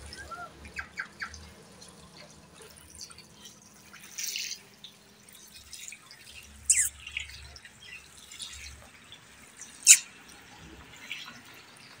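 Indian ringneck parrot making scattered short, sharp squeaks and clicks, the two loudest very brief shrill calls about seven and ten seconds in.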